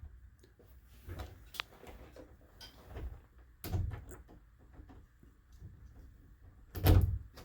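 Scattered clicks, knocks and light scrapes of a Kwikset SmartKey door knob being handled and slid through the latch in the door, with a louder bump near the end.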